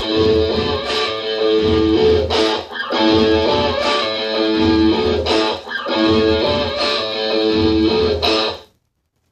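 Background music led by guitar, with a steady beat. It cuts off suddenly near the end, leaving silence.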